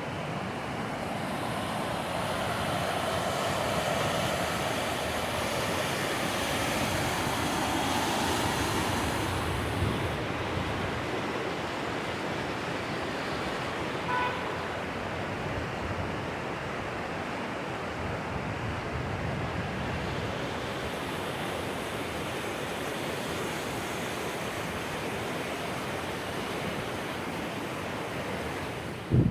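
Steady rush of strong wind together with fast-running mountain stream water, swelling during the first ten seconds and then holding even.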